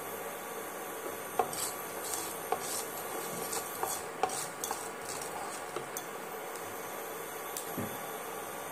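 Wooden spatula stirring nigella seeds in oil in a nonstick wok, giving irregular light knocks and scrapes against the pan.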